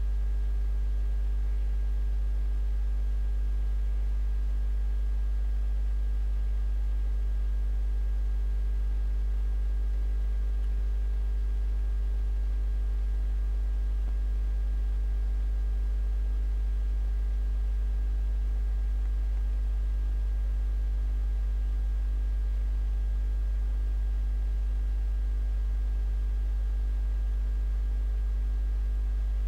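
Steady low electrical hum, with faint steady higher tones over it. It does not change.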